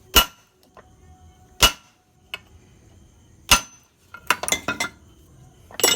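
Hammer blows driving a new ball bearing into a motorcycle engine crankcase through an old bearing used as a drift: three single ringing metal strikes about two seconds apart, a quick run of lighter taps, and one more strike at the end. The ringing, changed sound means the bearing has seated fully in its bore.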